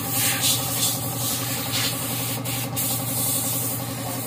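Short, repeated blasts of compressed air from a blow gun, cleaning brake dust out of a minibus drum-brake assembly. Under them runs the steady hum of the air compressor.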